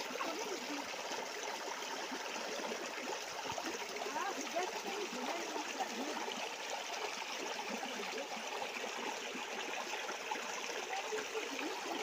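Small rocky stream running and trickling over stones: a steady rush of water.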